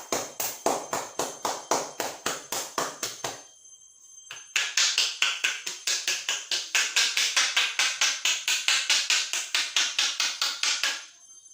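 Rapid rhythmic hand strikes of a traditional Indian head massage, slapping and tapping on the scalp at about five a second. It comes in two runs, with a short break about three and a half seconds in; the second run is faster and louder.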